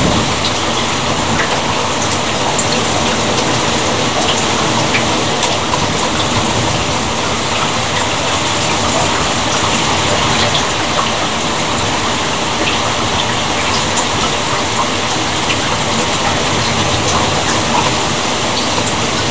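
Rain falling steadily: a dense, even hiss with scattered sharp ticks of drops.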